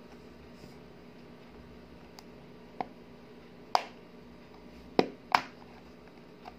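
Plastic clicks from the clear plastic box of a TWSBI Eco fountain pen as its snap clasp and lid are worked by hand: a few sharp single clicks in the second half, the two loudest close together about five seconds in, with faint taps between.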